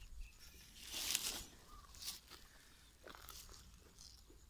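Footsteps through grass, a few irregular crunching steps.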